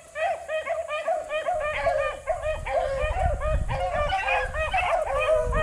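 A pack of hounds in full cry while trailing a rabbit: many short, overlapping bays from several dogs, several a second, without a break. A low rumble builds beneath them from about a second and a half in.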